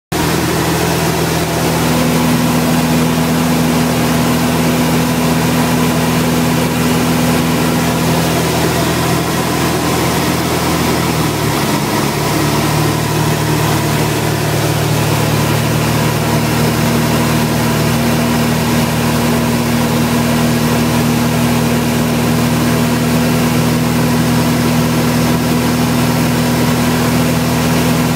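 Four-cylinder light-aircraft piston engine and propeller droning steadily in flight, heard inside the cockpit. Its note shifts briefly about twelve seconds in, then settles again.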